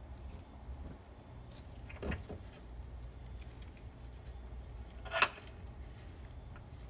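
Metal parts being handled at a workbench: a soft knock about two seconds in and a single sharp metallic clack about five seconds in, over a low steady hum.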